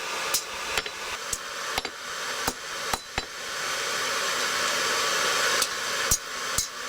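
Hand hammer blows on hot steel at the anvil while bending a forged J hook: about seven irregular strikes in the first three seconds, a pause of two or three seconds, then two more near the end. A steady rushing hiss underlies the blows and grows louder during the pause.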